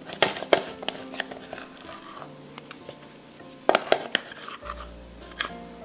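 A plastic dough scraper scraping sticky dough out of a stainless steel bowl, with sharp clinks and knocks of the metal bowl against the glass mixer bowl, twice near the start and a quick cluster about four seconds in.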